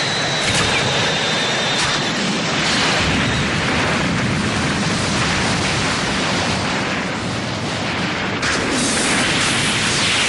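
Science-fiction space-battle sound effect: a long, continuous explosion rumble with sharp cracks about half a second and two seconds in. A falling whine fades out during the first two seconds, and a fresh blast comes in about eight seconds in.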